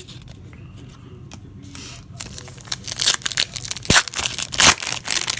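Foil trading-card pack wrapper being torn open and crinkled: a quick run of crackling rips that starts about two seconds in.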